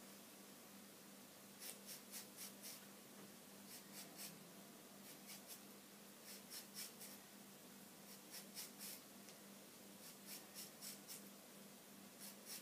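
Faint scratchy strokes of a razor comb shaving through weave hair, in quick bursts of three or four strokes every couple of seconds, as excess hair is carved away.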